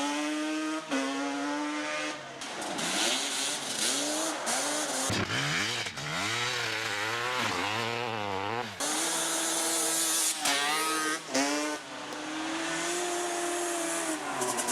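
Motorcycle engines revving, their pitch rising and falling again and again, in short clips cut one after another.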